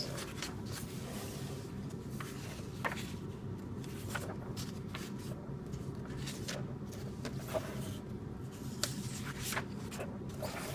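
Faint rustling and soft clicks of paper pages being turned and handled in a glue-bound coloring book, over a steady low hum of room noise.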